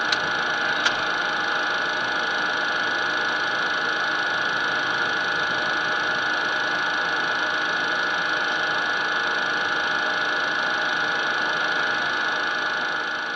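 Cessna Citation business jet's turbofan engines running at taxi power, heard inside the cockpit as a steady whine over cabin noise. Two short clicks come in the first second, and the sound begins to fade near the end.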